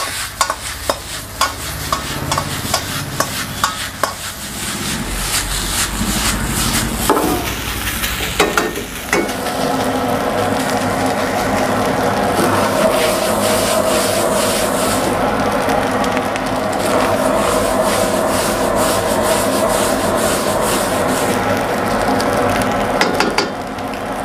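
Steel ladle clattering and scraping against a wok as fried rice is tossed and stir-fried over a high gas flame. A quick run of sharp ladle strikes during the first eight or nine seconds, then steady scraping and frying.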